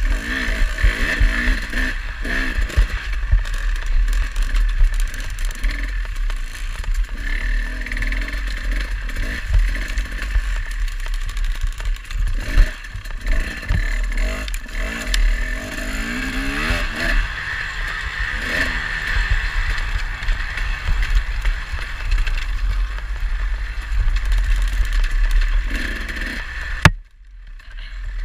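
Dirt bike engine revving up and down with the throttle while riding a rough trail, over a heavy low rumble of wind on the microphone. The sound drops out sharply for about a second near the end.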